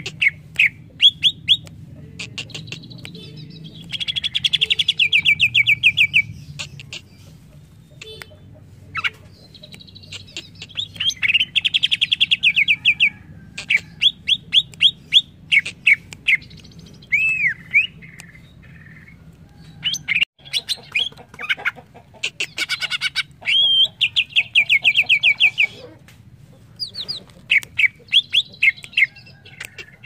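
Cucak ijo (green leafbird) singing a varied song of sharp chips and whistled slurs, broken by several fast trills of rapidly repeated notes.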